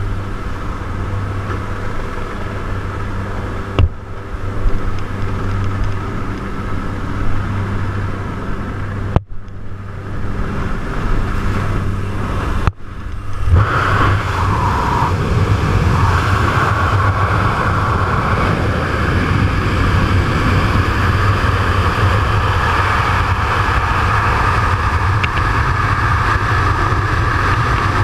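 A jump plane's engines drone steadily inside the cabin, with wind coming through the open door. About 13 seconds in, it turns suddenly to a louder rush of wind as the jumper leaves the plane, with the engine drone still under it.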